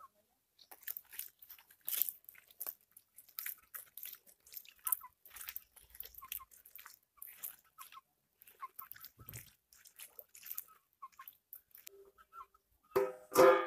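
A hand rubbing turmeric and salt into raw cut snakehead fish pieces in a wicker basket: irregular wet squelches and light crackly clicks as the pieces are turned and pressed.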